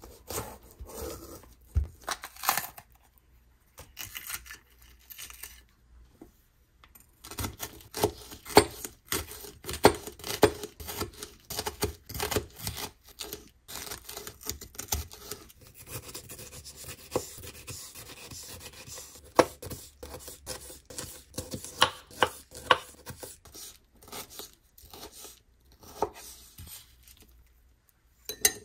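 Chef's knife cutting a red bell pepper on a cutting board: slicing through the crisp flesh, then dicing it with quick, irregular knife taps against the board.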